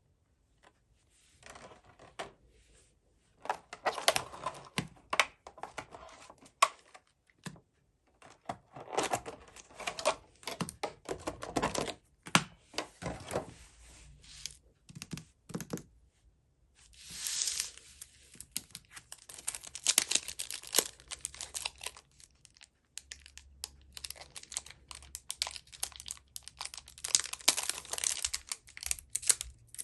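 Packaging of a Pokémon trading card box being torn open and crinkled by hand, with clicks of card and cardboard being handled: several stretches of crinkling and tearing broken by short pauses.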